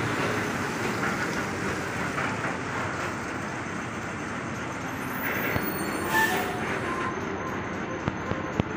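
Steady rumbling background noise with scattered faint clicks, and a few brief high squeaks about six seconds in.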